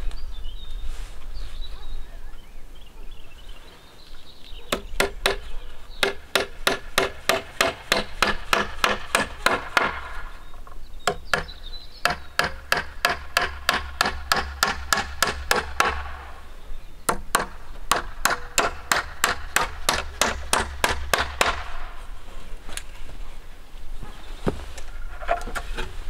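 Hatchet striking a wooden plank of a bushcraft camp table in quick, even blows, about three a second. The blows come in three runs separated by short pauses, and the board rings with each hit.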